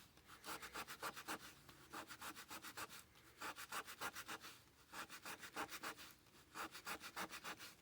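The back edge of a laminated drum head being roughed up by hand with an abrasive to make a gluing surface: quick back-and-forth scratchy rubbing strokes, about six a second, in runs with two short pauses.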